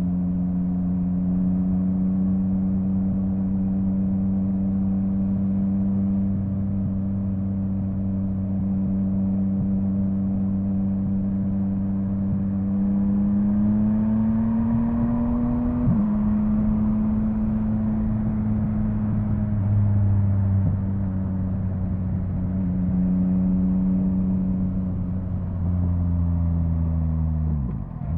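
Yamaha MT-09's three-cylinder engine running under way at steady revs. About halfway in it rises for a few seconds, then drops abruptly, like a quick-shifter upshift. Near the end the revs fall again sharply.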